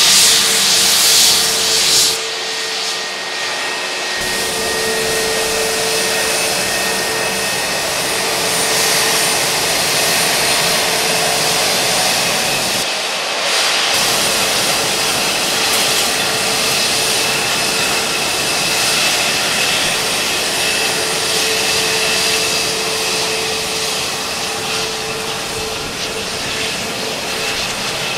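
Airbus A321neo's twin jet engines at taxi power as the airliner rolls past and away: a steady whine with a held mid-pitched tone over a rushing hiss. The hiss is loudest in the first two seconds, while the aircraft is closest.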